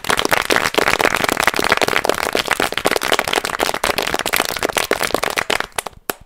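Loud, dense crackling made of many rapid clicks, starting suddenly and cutting off abruptly about six seconds in.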